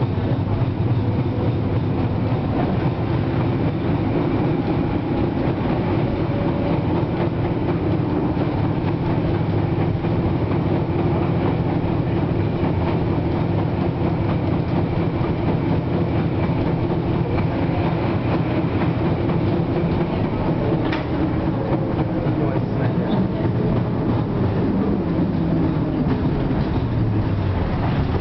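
Interior running noise of an FVV CSM-4 articulated tram in motion: a steady rumble of wheels on rail with the hum of the traction motors. Over the last few seconds the hum falls in pitch as the tram slows.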